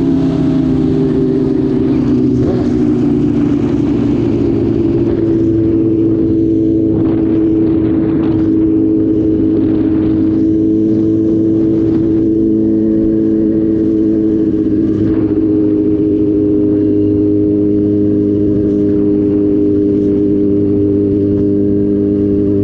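Sport motorcycle engine running at steady cruising revs while being ridden, heard from onboard with wind rush. The engine note falls a little in the first two seconds, then holds steady, shifting slightly about two-thirds of the way through.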